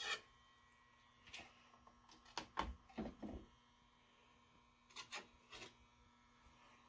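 Faint handling noises: a few short rubs and light knocks, most of them around the middle and a few more about five seconds in, as a freshly wound coil of enamelled copper magnet wire and its loose wire end are handled.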